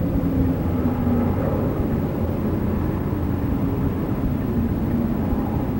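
Thunderbolt outdoor warning siren sounding during a signal test: faint wavering tones over a steady low rumble.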